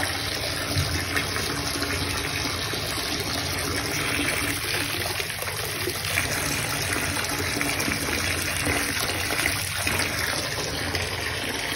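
Bath tap running into a filling bathtub, water pouring and splashing steadily.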